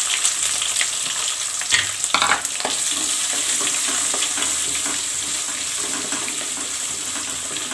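Chopped onions sizzling in hot groundnut oil in a kadai with mustard seeds and dried red chillies, stirred with a wooden spatula. There are a few sharp knocks about two seconds in.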